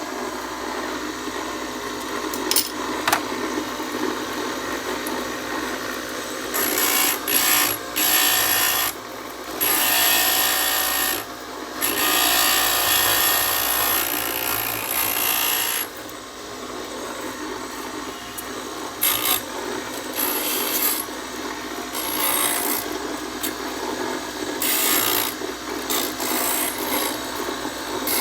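Homemade stained glass grinder: an electric motor spinning a wet grinding wheel while pieces of stained glass are ground against it, a gritty rasping that gets louder in stretches of a few seconds and falls back between them.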